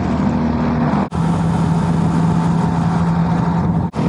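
Motorcycle engine running at a steady cruising speed, heard with the rush of riding wind. About a second in the engine note drops to a lower, steady hum after a brief break in the sound.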